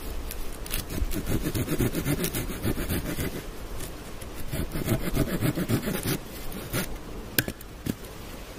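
Hand tool cutting into the end of a wooden pole: fast, rasping scrape strokes in two bursts, the second one shorter. A single sharp click comes near the end.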